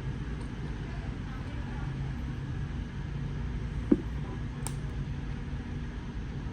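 Steady low background rumble with one short sharp click just before four seconds in and a fainter tick a moment later.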